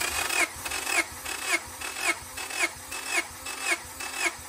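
Honda B16A four-cylinder engine cranked over on its starter motor for a compression test, without starting. It turns over in an even rhythm of about two pulses a second, with a starter whine in each. The cylinder under test reads 225 psi, which counts as pretty good.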